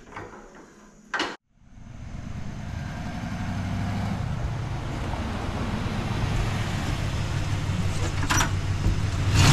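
1994 Cadillac Fleetwood Brougham's 5.7-litre LT1 V8 running as the car drives up at low speed, its engine and exhaust growing steadily louder as it approaches. It runs quietly, with no hiss, because the leaking exhaust manifold has been fixed.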